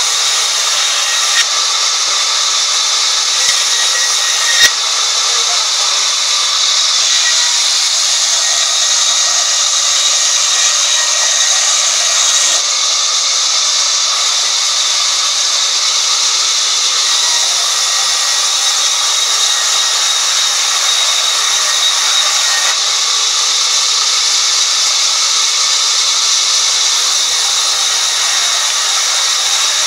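Sawmill band saw running steadily as a plank is ripped through it, a loud continuous hiss with a faint high whine. A sharp knock sounds about five seconds in, with a smaller one a few seconds before it.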